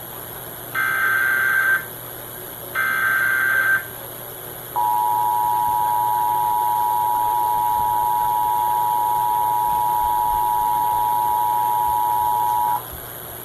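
Emergency Alert System header played through a radio and soundbar: two one-second bursts of SAME digital data tones, then about eight seconds of the steady two-tone attention signal, which cuts off sharply near the end. It marks the start of a flash flood warning broadcast.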